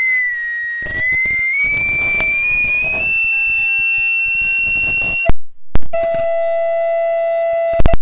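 Audio feedback squeal: a single piercing tone that wavers and slowly rises in pitch, then cuts off with a loud pop about five seconds in. After a second pop it gives way to a steady lower feedback tone, and more pops come near the end.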